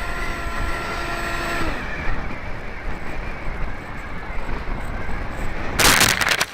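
Onboard audio from an electric RC foam B-2 flying wing: the electric motor whines steadily, then winds down with a slight drop in pitch a little under two seconds in, leaving wind rushing over the nose camera as it glides. A loud rush of noise comes near the end.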